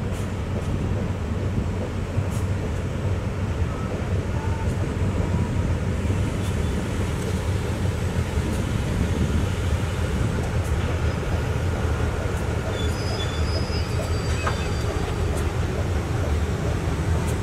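A GEA-class diesel-electric locomotive's engine runs with a steady low drone as it draws a passenger train slowly into the platform and comes to a stop. A few faint high squeals sound in the second half.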